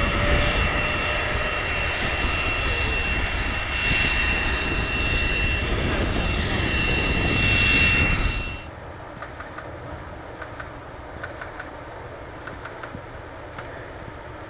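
Boeing 787-9 jet engines at takeoff thrust: a steady loud rush with a high, constant whine. It cuts off abruptly a little past halfway. After that there is only a quiet background with faint, irregular ticking.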